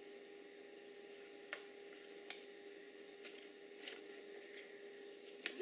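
Small piece of paper being handled by small hands: a few faint rustles and short clicks, the clearest ones a little after a second in, around two seconds in, and again near the four-second mark. A steady low hum runs underneath.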